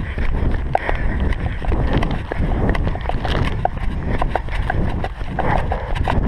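Wind rumbling steadily on a body-worn action camera's microphone, with a runner's footsteps and the crinkle of a plastic map bag handled in his hands.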